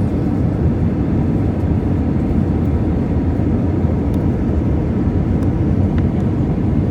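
Steady cabin noise inside an Airbus A320-200 on approach to land: a loud, even rumble of engine and airflow heard from a window seat over the wing.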